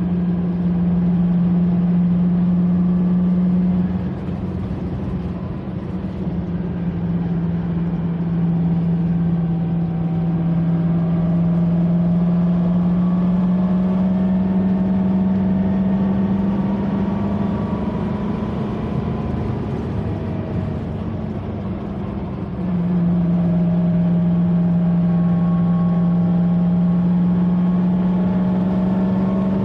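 An old car's engine heard from inside the cabin while driving, a steady low drone. The engine note drops and quietens about four seconds in, rises slowly again, and drops once more about two-thirds of the way through before coming back.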